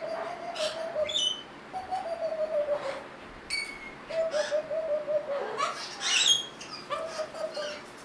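Hyacinth macaw vocalising in runs of short, low, evenly spaced notes, with a sharp rising call about six seconds in and a few high chirps and clicks between.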